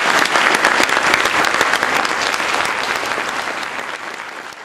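Audience applauding: dense, sustained clapping from a large crowd that dies away near the end.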